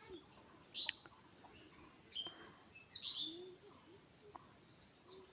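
Faint, scattered bird chirps: a few short separate calls, one falling sharply in pitch about three seconds in.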